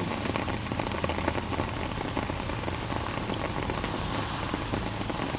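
Steady rain falling, a dense patter of drops over a steady low hum.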